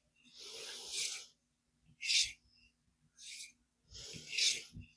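Knife edge stroked along a strop loaded with 5-micron compound: about five dry swishes, roughly one a second, the first a little longer, as the AEB-L blade is stropped at its sharpening angle to remove the last of the burr.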